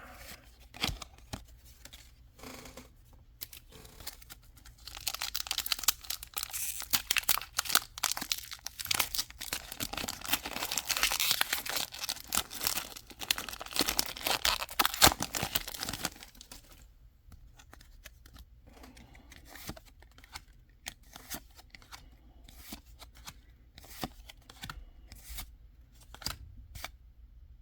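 Foil wrapper of a Pokémon 151 booster pack being torn open and crinkled for about ten seconds in the middle, with light scattered clicks of handling before and after.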